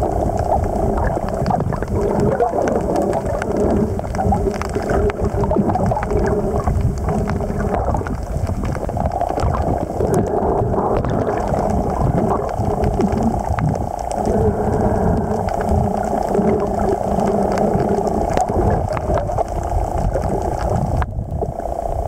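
Underwater sound of wave surge moving over a shallow rocky reef, recorded by an underwater camera: a loud, steady low rushing with a constant hum under it.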